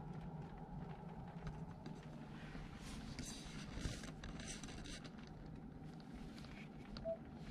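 Ford Mustang GT's 5.0 V8 and road noise as a faint, steady low drone while the car is driving, with a brief click about four seconds in.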